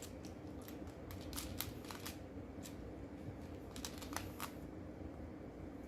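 Small plastic Lego pieces clicking as they are handled and picked through, a scatter of light irregular clicks over a faint steady hum.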